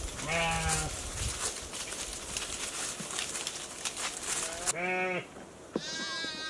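Sheep bleating: three short calls, the first under a second in, the second near five seconds, and a higher-pitched one near the end, over a rustling, crackling background.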